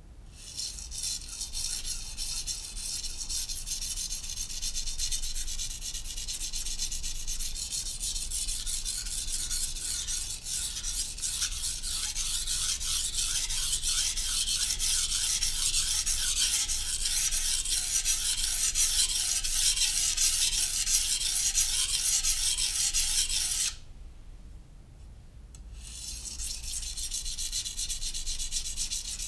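Steel knife blade being sharpened on a Naniwa Professional (Chosera) 600-grit whetstone: a steady run of quick back-and-forth grinding strokes. The strokes stop for about two seconds near the end, then start again.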